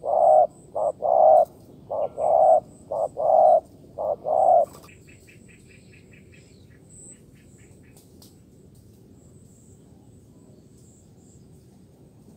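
Spotted dove cooing: a short coo followed by a longer one, repeated four times in the first five seconds before it stops. Faint rapid high chirping follows.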